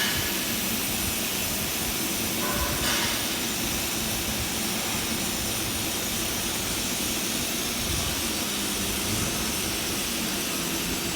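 Steady welding hiss on a thin 1.2 mm tube, with a low hum beneath and no break.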